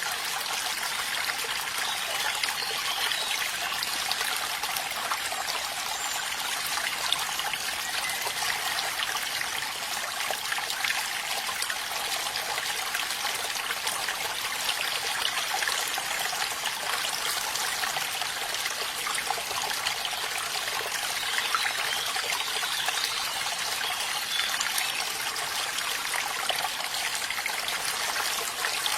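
Stream water trickling and flowing steadily, an even hiss with little low rumble.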